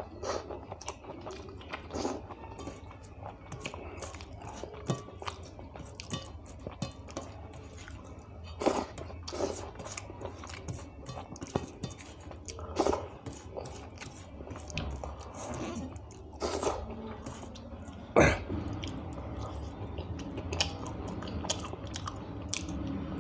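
Close-miked person chewing a mouthful of rice, saag curry and fried chicken liver, with wet mouth clicks and smacks at irregular intervals over a low steady hum. One sharper, louder click stands out about three-quarters of the way through.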